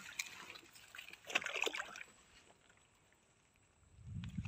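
Water sloshing and dribbling in a few short bursts as someone moves through shallow water with their hands, the loudest about a second and a half in. It then goes quiet, and a low rumble comes in near the end.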